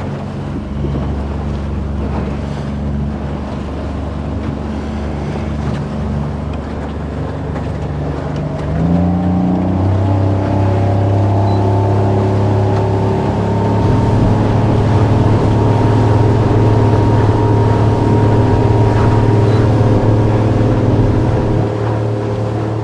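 Motorboat engine running under way. Its note steps up about nine seconds in as the throttle opens, then holds at a higher, louder pitch, easing off a little near the end.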